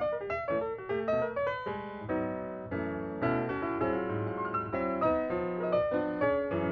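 Background piano music: a light melody of quick notes, with held chords in the middle.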